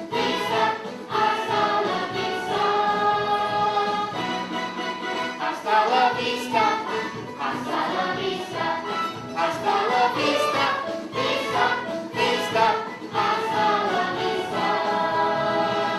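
A children's choir singing with accompaniment, sustained sung phrases running on without a break.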